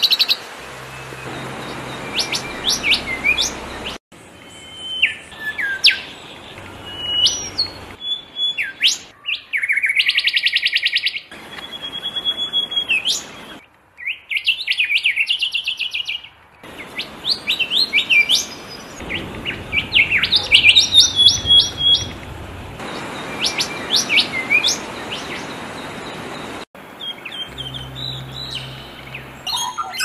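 A string of different songbird songs and calls, spliced together and changing abruptly every few seconds: clear whistles sliding up and down, short chirps, and a fast trill partway through.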